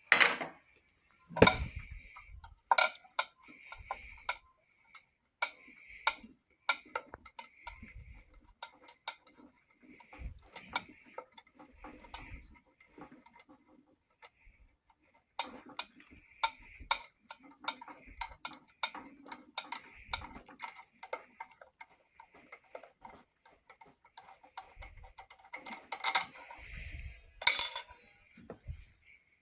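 Hand tools working on a Briggs & Stratton 11 hp engine during teardown: a long run of sharp metallic clicks and taps at uneven spacing, with a few louder knocks at the start and again near the end.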